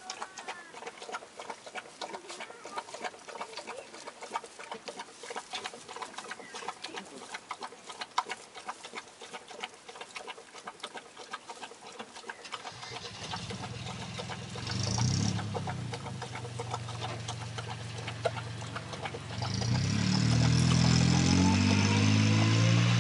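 Dry straw bedding crackling and rustling as young puppies move about on it. From about thirteen seconds in, an engine is heard running, and it grows louder and changes speed about twenty seconds in.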